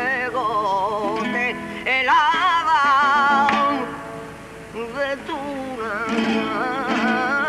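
Flamenco song: a man's voice sings a wavering, heavily ornamented line to a Spanish flamenco guitar. The music drops away briefly just past the middle, then picks up again.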